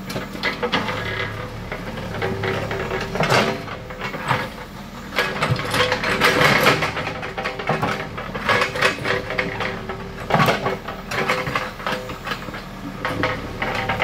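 Bull HD76 backhoe loader's diesel engine running under load, with a steady hum, while the backhoe arm and bucket clank and scrape through loose dirt in irregular knocks.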